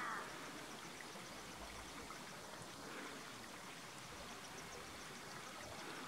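Faint, steady rush of flowing stream water, with a brief louder sound right at the start.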